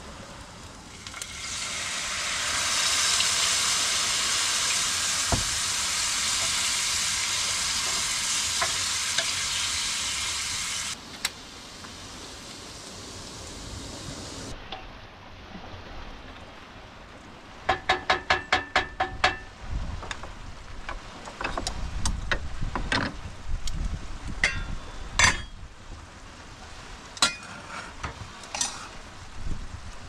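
Camp cooking: a steady sizzling hiss for about ten seconds that stops abruptly, then a quick run of ringing metallic clicks followed by scattered clinks and knocks of utensils and cookware.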